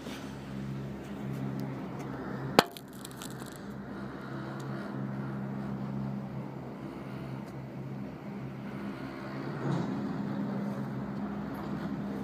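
A steady low mechanical hum with two held tones, and a single sharp knock about two and a half seconds in.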